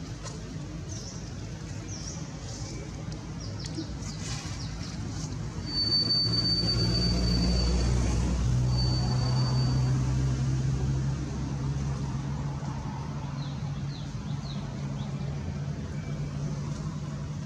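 A passing motor vehicle: a low engine rumble that swells about six seconds in and eases off after about eleven, with a high steady whine over it in the middle. Short high chirps come now and then.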